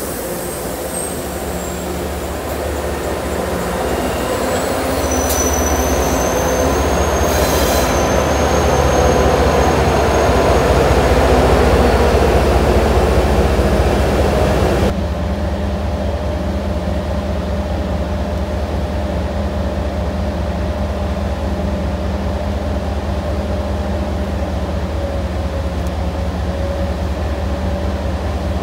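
MBTA commuter train rolling past on a curve, bilevel coaches and then its HSP46 diesel locomotive pushing at the rear, the rumble growing louder with a thin high wheel squeal. About halfway through, the sound cuts abruptly to a steady diesel drone of the train standing at the station.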